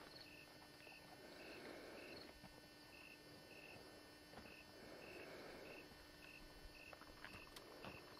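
A cricket chirping faintly and steadily, about two short chirps a second.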